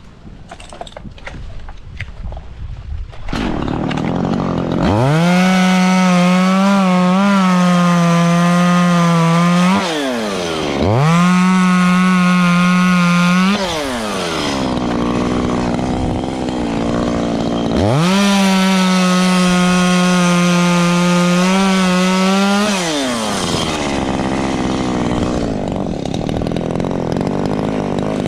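Echo CS-3510 two-stroke chainsaw revved up to full throttle three times, holding a steady high pitch for several seconds each time and dropping back toward idle in between; a few sharp knocks come before it in the first seconds.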